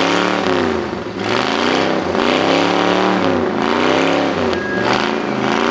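A demolition derby car's V8 engine being revved over and over, its pitch climbing and dropping about every second and a half.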